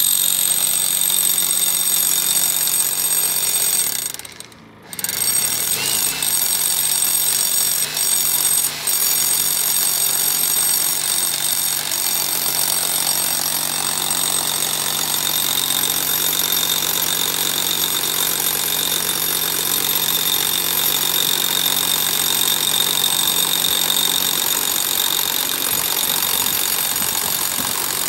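Corded rotary hammer drill boring down through a 12-inch concrete dock pile with a long masonry bit, hammering steadily with a high whine. It stops for under a second about four seconds in, then starts again and runs on.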